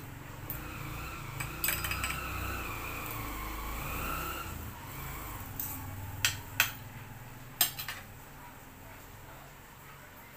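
Metal spoon and fork clinking and scraping against a ceramic plate during a meal. There are a few sharp clinks, one about a second and a half in and a cluster between about six and eight seconds in, over a low rumble in the first half.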